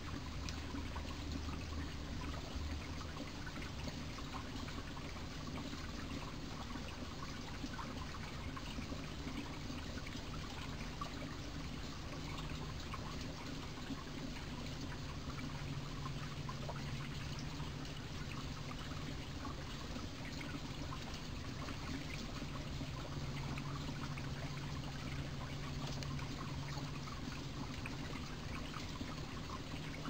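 Mountain stream running steadily, a continuous rush and trickle of flowing water.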